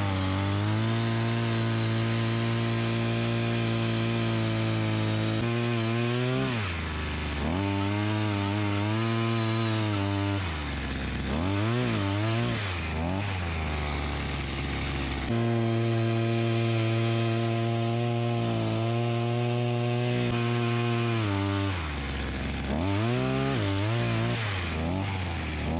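Small engine running at a steady speed, its pitch dropping and climbing again several times as the throttle is eased off and reopened.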